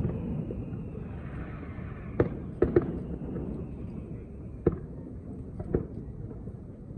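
Aerial fireworks shells bursting in a run of sharp, echoing bangs, two or three close together two to three seconds in and more near five and six seconds, over a steady low rumble of the ongoing display.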